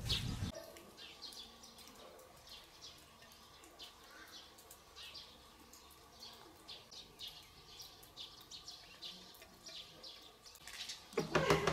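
Faint birdsong outdoors: many short chirps and tweets from small birds.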